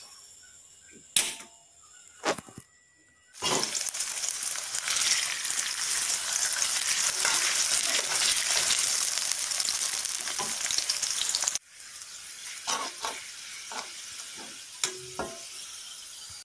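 Sliced red onions frying in hot oil in a wok, stirred with a metal spatula. Two sharp knocks come first, then a loud sizzle starts about three seconds in. It drops suddenly to a quieter sizzle with scattered clicks about four seconds before the end.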